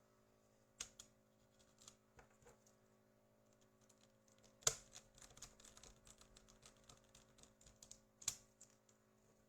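Faint, irregular clicks and taps of hand work on a video cassette, with one louder click near the middle and a quick run of small ticks after it, over a faint steady hum.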